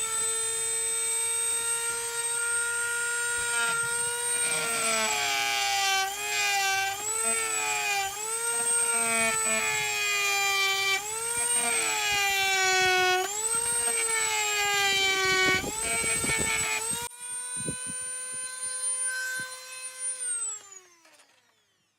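High-speed handheld electric power tool whining at a steady pitch. The pitch dips again and again as the tool bites into the body-kit lip being shaved down, then recovers. Near the end it is switched off and spins down, falling in pitch until it stops.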